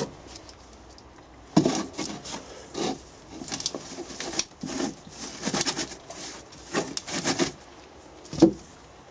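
Moulding sand being rubbed by a gloved hand through a metal sieve (riddle) over a wooden moulding box, a run of scratchy rasping strokes that sift fine facing sand onto the pattern. A single sharp knock near the end.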